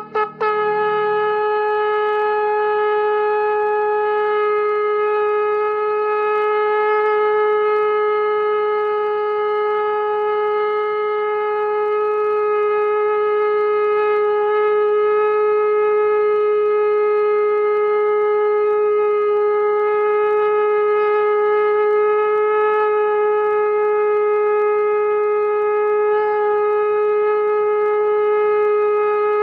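Conch shell (shankh) blown in one long, unbroken note, a steady loud tone held at the same pitch without a pause for breath.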